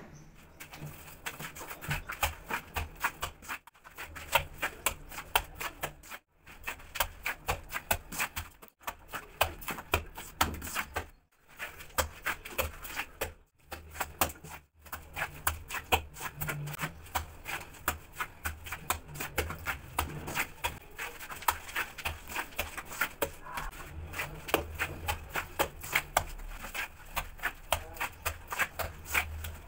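Hand tool chipping and scraping at rough mortar on a stripped bathroom wall: a fast, irregular run of sharp taps, several a second.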